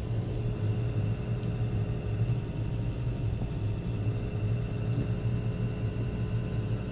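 Vehicle running steadily: a low engine rumble with a faint, steady high whine over it.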